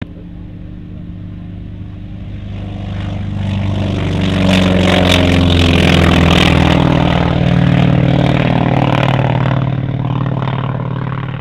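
North American T-28D Trojan's Wright R-1820 nine-cylinder radial engine at full takeoff power. It grows louder as the aircraft approaches and is loudest about six seconds in, where its pitch drops as it passes, then fades as it climbs away.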